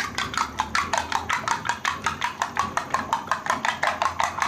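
Metal spoon beating a raw egg in a small ceramic bowl, clinking against the bowl's side in a fast, even rhythm of about seven strokes a second.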